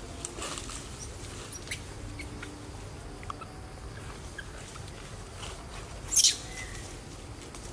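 Rustling in a leafy tree canopy with scattered small clicks and chirps. About six seconds in there is one loud, short rustle of leaves and branches, followed by a brief faint chirp.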